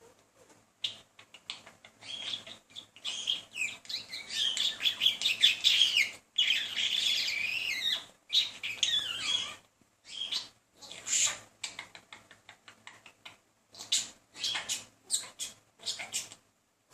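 Male budgerigar warbling and chattering as it courts a female, a busy run of chirps and trills for several seconds, then breaking into shorter separate chirps and clicks.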